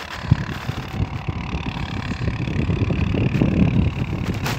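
CF Moto ATV engine running as the quad drives away through snow, heard under an uneven low rumble that swells about three seconds in.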